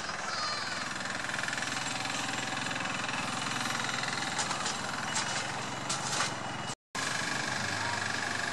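Small diesel engine of a miniature-railway locomotive running steadily as it pulls a train of riders, with a few sharp clicks along the way. The sound cuts out for a moment about seven seconds in.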